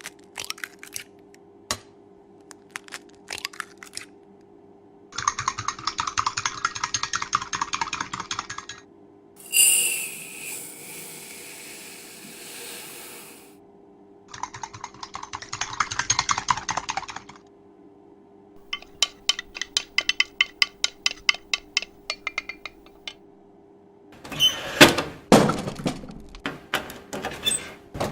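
A series of separate kitchen and restaurant sound effects over a steady low hum: scattered clicks and knocks, two stretches of dense scraping or rustling noise, a sudden hiss that fades away over a few seconds, a run of quick even taps about five a second, and a cluster of loud knocks near the end.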